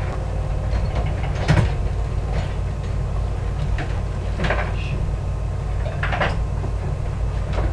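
Plastic bowls and dishes knocking and clattering a few times as they are moved about in an open dishwasher rack, over a steady low hum.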